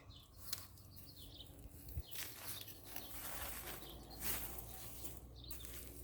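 Faint rustling and scraping of hands digging through loose potting soil in a fabric grow bag, in short uneven swishes with a small click about two seconds in.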